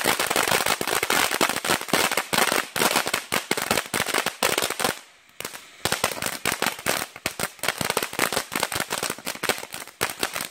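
Ground fountain firework spraying sparks, crackling in a dense rapid string of sharp pops over a faint hiss, with a brief lull about halfway through before the crackling picks up again.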